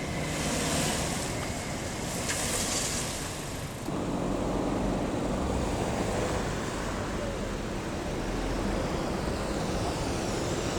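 Fire truck engines running as the fire-brigade convoy pulls out, over a steady rumble with wind noise. Two short bursts of high hiss come in the first few seconds.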